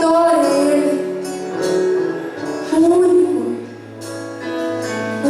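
Live church worship band music with a gliding sung or played melody over held bass notes.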